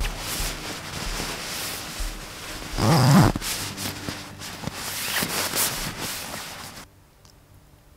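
Nylon sleeping bag rustling as a person wriggles into it and pulls it up, with a short low grunt about three seconds in. The rustling stops about a second before the end.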